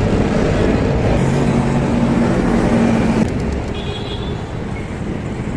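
Road traffic noise with a motor vehicle's engine running close by for about two seconds, then falling away suddenly, leaving a steady noisier hiss.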